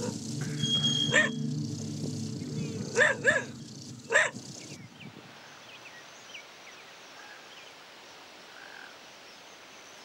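A dog barks four times over a low, steady hum. About five seconds in, the sound cuts to quiet open-air background with a few faint, short high chirps.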